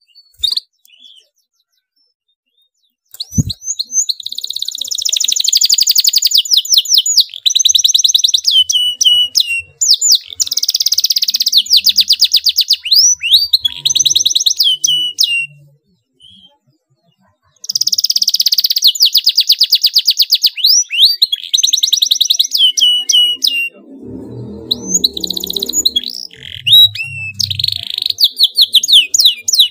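Domestic canary singing in long bursts of fast, tight rolled trills and chirps, with a pause of about two seconds midway. A fainter low rumble runs underneath for a few seconds near the end.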